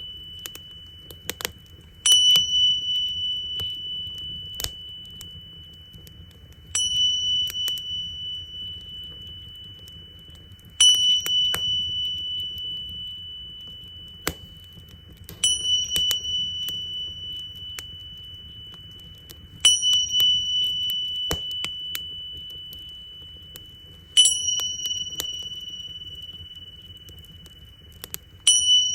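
Tingsha cymbals struck together seven times, about every four and a half seconds, each strike a bright high ring that fades slowly. Underneath, a wood fire crackles and pops with a low steady rumble.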